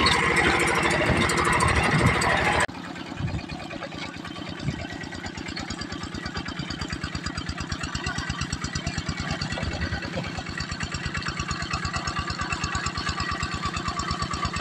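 A Kubota tractor engine running at a steady, even chug. For the first few seconds a louder, rougher noise covers it, and that noise cuts off abruptly.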